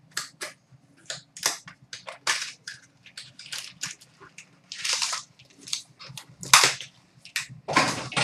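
Foil wrapper of a hockey card pack being torn open by hand: a string of short, sharp crackles and rustles, with a longer tear about five seconds in and a louder rustle near the end.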